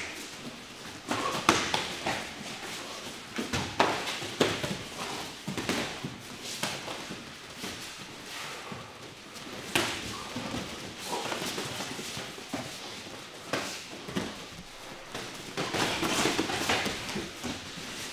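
Muay Thai sparring: boxing gloves and shin-guarded kicks landing at irregular moments as sharp slaps and thuds, amid shuffling feet on the mats.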